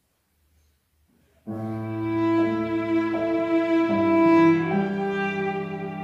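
Violin and cello start playing together about one and a half seconds in, after near silence, with long held bowed notes and slow changes of pitch.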